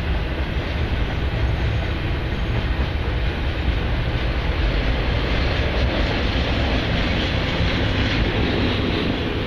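Union Pacific freight train passing close by, its cars' wheels making a steady, dense rumble on the rails.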